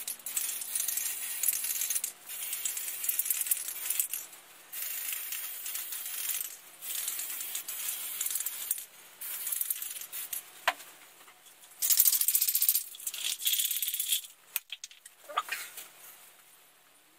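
Aerosol can of primer spraying in repeated hissing bursts of a second or two, with the can's metal mixing ball rattling as it is shaken between passes.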